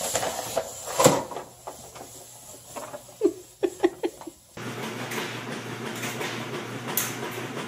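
Paper gift bag rustling and scraping across a wooden floor as a cat walks with it caught around its body, with a sharp knock about a second in and a few short squeaks. Then, from a sudden switch after about four and a half seconds, a treadmill's motor and belt running with a steady hum and rattle.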